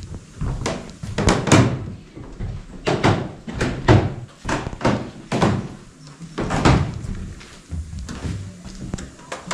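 Footsteps thudding on hollow wooden floorboards, about two steps a second, somewhat uneven.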